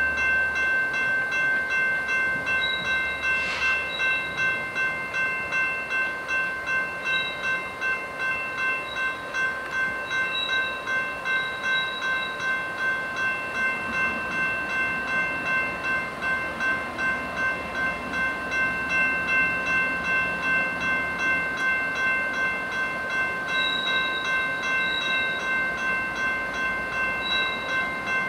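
Railroad grade-crossing bell ringing steadily at about two strikes a second, warning of an approaching train, with a faint train rumble underneath.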